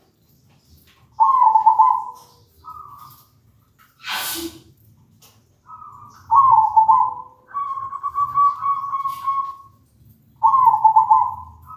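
Zebra dove (perkutut) cooing in short, rapidly pulsed phrases every second or two, with one longer, even trill in the second half. A brief rushing noise comes about four seconds in.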